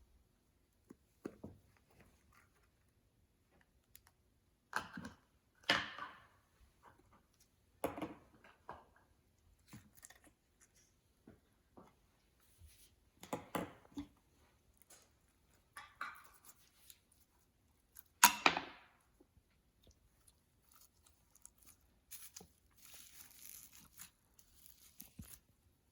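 Slime being worked by hand: irregular sticky squelches and crackles, the loudest about 18 seconds in, with a stretch of fine crackling near the end.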